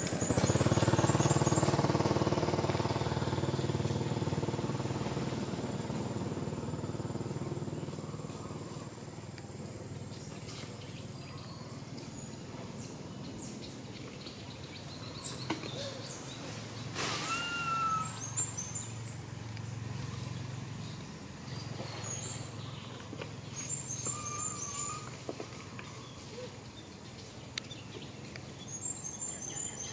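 Outdoor ambience with a motor's low hum that fades away over the first several seconds. Short runs of high bird chirps come several times, and there is a single brief call about halfway through.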